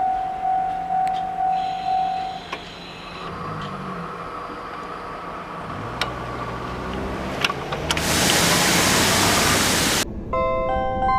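Level crossing warning bell ringing about twice a second, stopping about two seconds in, then KiHa 40 and KiHa 150 diesel railcars running past with their engines and a few wheel clicks. Near the end a loud rushing hiss cuts off suddenly and a tinkling mallet-percussion tune begins.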